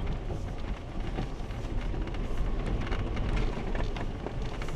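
Jeep driving down a rocky, rutted dirt trail: a steady low rumble with the tyres crunching over stones and many small knocks and crackles.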